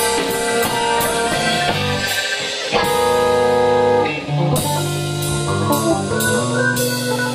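Live band playing a blues number: electric guitar over a drum kit, with held chords ringing and a few sharp accents in the second half.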